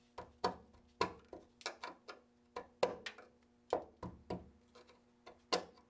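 Steel hand scraper picking and scraping brittle seam sealer off a sheet-metal panel seam: a string of short, irregular clicks and scrapes of metal on metal.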